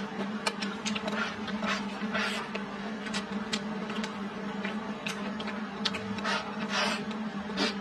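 Close-up eating sounds: chewing and smacking on a mouthful of salted chicken and stir-fried greens, with many small sharp clicks and a few short breathy, slurping smears. A steady low hum runs underneath.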